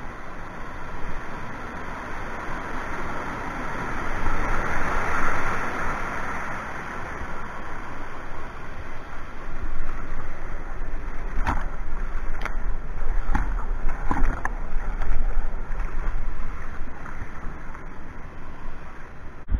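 Whitewater rushing and churning below a weir, heard from a kayak at water level. In the second half a deep rumble comes in with a few sharp knocks.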